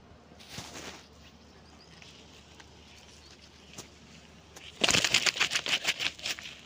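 Large singara catfish thrashing on bare sand: about five seconds in, a loud burst of rapid slaps of its body and tail against the ground, lasting about a second and a half.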